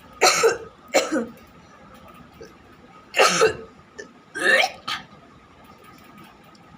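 A person making exaggerated, mock cough and retching noises with the voice: two short loud bursts about a second apart, then a second cluster of three bursts a couple of seconds later.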